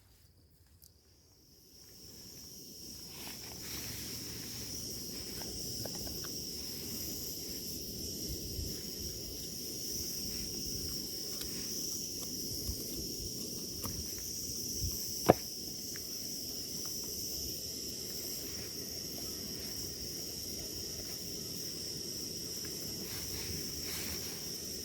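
Insects chirring in one steady high buzz that comes in about two seconds in, with a single sharp click about fifteen seconds in.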